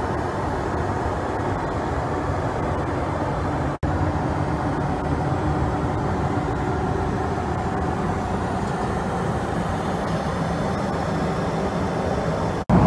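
Steady in-flight airliner cabin noise, an even low rush of engines and airflow heard inside the lavatory, cutting out briefly twice, about four seconds in and near the end.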